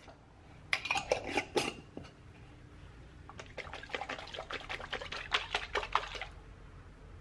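Dishes and cutlery clinking and clattering in two bouts: a short burst about a second in, then a longer run of quick clinks from about three to six seconds.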